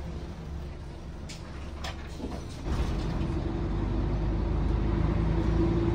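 City bus engine and drivetrain heard from inside the cabin: a low rumble with a few light clicks and rattles, getting louder about two and a half seconds in as the bus picks up speed, then holding a steady hum.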